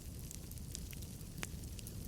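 Wood logs burning in a fireplace: a low steady rumble of the flames with scattered small crackles and one louder pop about one and a half seconds in.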